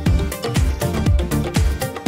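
Background music with a steady, fast electronic dance beat.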